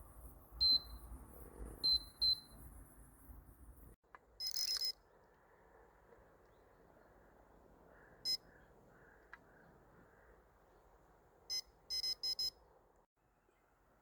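Electronic carp-fishing bite alarm beeping in short high bleeps: a few single beeps, a longer burst, then a quick run of several beeps near the end, the sign of movement on the line.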